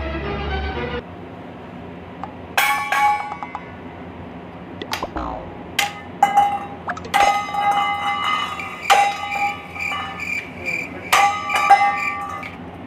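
Bell-like chiming tones, struck again and again in clusters and ringing on at the same few pitches. They grow busier and louder toward the end.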